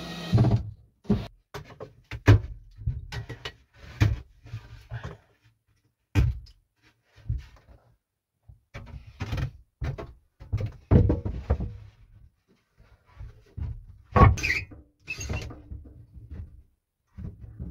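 Irregular knocks, thuds and scraping as a silicate insulation board is handled and fitted against the wooden wall beside a wood stove. The loudest is a sharp knock about fourteen seconds in.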